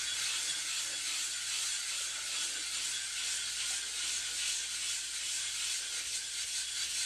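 Wet whetstone being rubbed back and forth on a flattening plate, a continuous high scraping hiss. This is lapping a new stone's surface flat.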